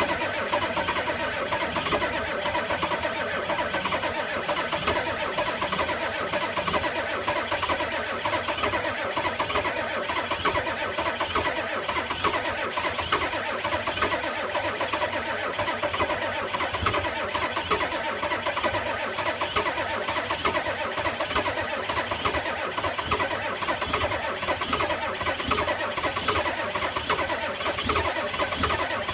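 Starter cranking the 1985 Ford F-250's naturally aspirated 6.9 IDI V8 diesel steadily without it catching: a no-start in −34 cold.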